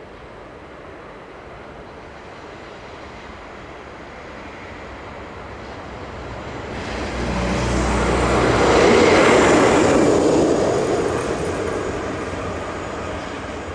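Electric train passing close by: a rumble of wheels on rail that swells from about six seconds in, is loudest around nine seconds, then slowly fades.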